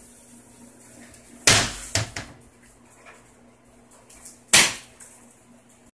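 Sharp knocks over a faint steady hum: a loud one about a second and a half in, quickly followed by two smaller ones, and another loud one about four and a half seconds in.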